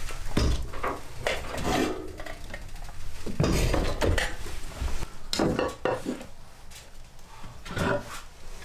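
Metal cookware clinking and knocking as it is handled: a teapot lifted from a wood stove's steel top and a cooking pot taken off a wooden shelf, in a string of uneven clanks.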